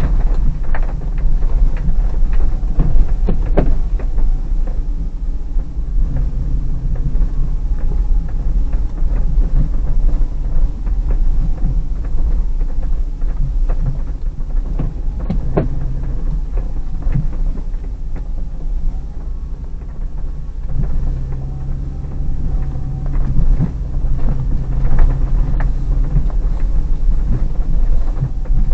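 Inside the cabin of a Hyundai Terracan, its 3.5-litre V6 running at low speed with a deep, steady rumble from engine and tyres on a rough snowy dirt track. Occasional knocks and rattles, the sharpest about 3 and 15 seconds in.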